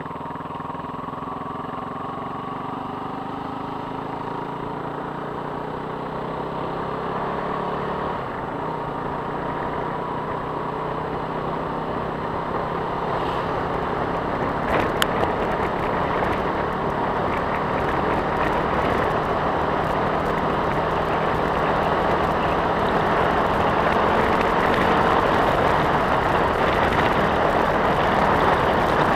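A vehicle driving along a road that turns from pavement to gravel: engine running with tyre and road noise that grows steadily louder as it goes. One sharp tick about halfway through.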